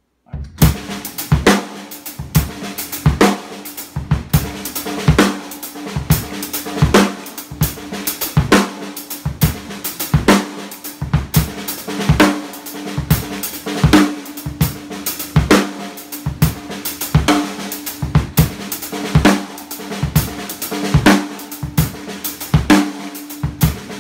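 Acoustic drum kit played continuously in a repeating drill of triplets and sixteenth notes, starting on the downbeat triplet and ending with the upbeat sixteenth, with a strong accented hit about once a second. The playing starts about half a second in.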